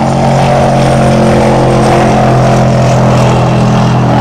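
Race ski boat's high-powered inboard engine running hard at speed: a loud, steady drone that holds one pitch.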